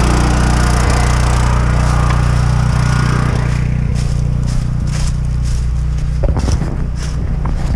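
A steady motor hum under a harsh cutting noise that dies away about three and a half seconds in, followed by scattered knocks and clicks.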